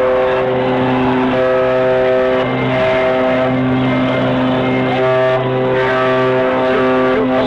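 Ocean liner's steam whistle sounding its departure signal: deep, several-toned blasts held for a second or more each, one after another with only brief breaks.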